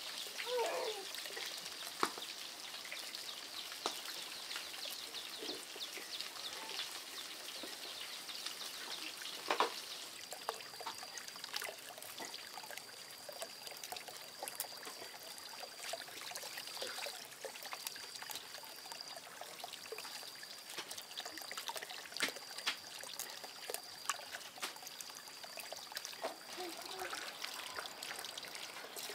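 Water trickling and running, with scattered small clicks and splashes. From about a third of the way in, a thin high-pitched tone comes and goes in stretches of about a second.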